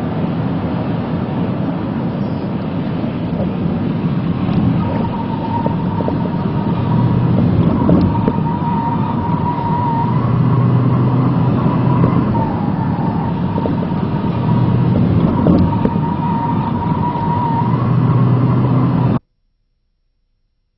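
A car at speed on a test track: steady engine and road noise, with a thin tyre squeal coming and going from about five seconds in as the car corners. The sound cuts off near the end.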